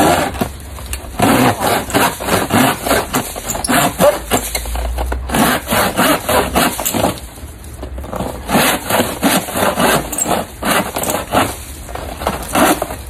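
Hand pruning saw cutting through the woody stalk of a dried palm frond, in quick back-and-forth strokes about three a second. The sawing pauses briefly about seven seconds in, then resumes.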